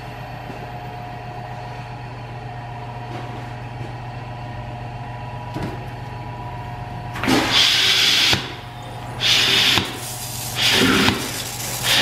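A milking-system vacuum pump runs with a steady hum as the vacuum builds. About seven seconds in, loud hissing, sucking bursts begin, one roughly every second and a half, as the NuPulse milking claw, with its pulsator built in, draws air and sanitizer water through the machine.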